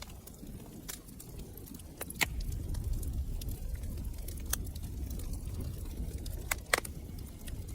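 Wood fire crackling: a low steady rumble of flames with scattered sharp pops, about half a dozen, the loudest near the end.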